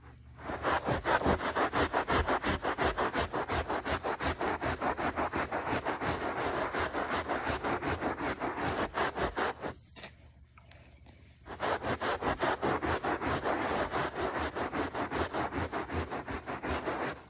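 A kitchen sponge's scouring pad scrubbed hard back and forth on a shag carpet: a rapid scratchy rubbing of about five strokes a second. It pauses for under two seconds about ten seconds in, then carries on.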